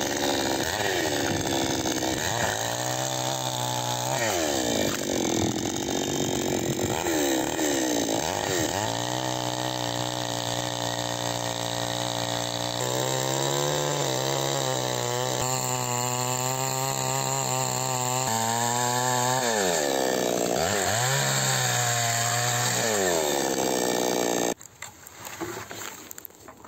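Two-stroke gasoline chainsaw running at high revs while cutting lengthwise through a dry pine log. Its pitch dips and climbs back several times as the bar bites and is eased off. Near the end the engine cuts off abruptly.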